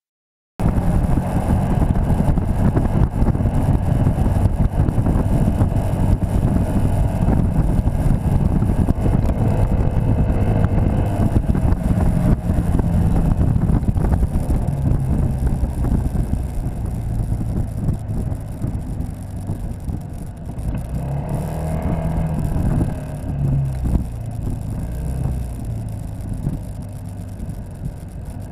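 Citycom scooter's single-cylinder engine running under way, heard with heavy wind rush buffeting the microphone. The sound cuts in about half a second in and eases off over the last several seconds.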